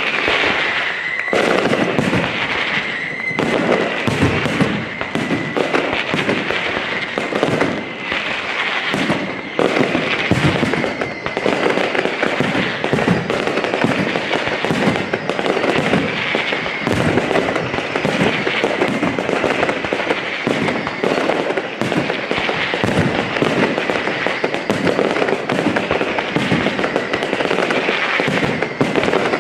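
Aerial fireworks going off in a dense, continuous barrage of bangs and crackles, with a thin high whistle running underneath.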